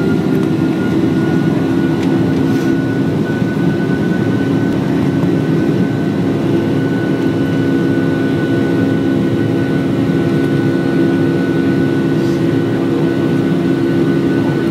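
Jet airliner's engines running loud and steady, heard from inside the passenger cabin, as the plane rolls along the runway for takeoff. A deep rumble with a steady hum and a thin high whine.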